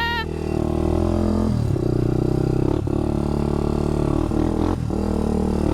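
Honda four-wheeler (ATV) engine running under throttle on a dirt trail. The engine note shifts about one and a half seconds in and again near five seconds, as the throttle or gear changes.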